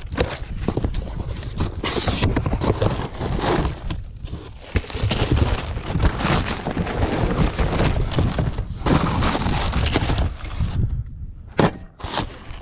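Cardboard box being opened and a new condenser fan motor pulled out of its plastic wrapping: irregular rustling, crinkling and cardboard scraping, with a sharp knock near the end as the motor is set down.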